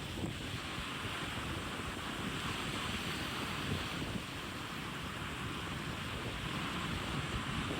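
Wind and the rush of sea water past a moving ship, a steady roar, with low wind buffeting on the microphone.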